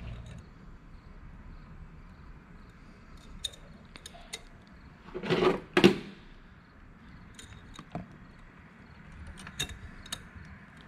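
Small metallic clicks and light scrapes of stainless lock wire being handled and fed through the oil filter's safety-wire hole, with a louder scrape and a sharp clink a little past halfway.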